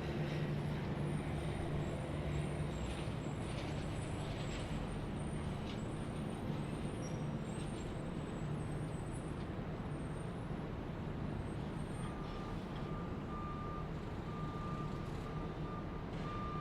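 Heavy vehicle engine running steadily, with a backup alarm starting to beep about three-quarters of the way through.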